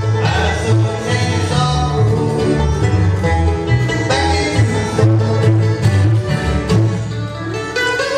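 Bluegrass band playing: upright bass plucking a steady low line under acoustic guitar, mandolin and banjo.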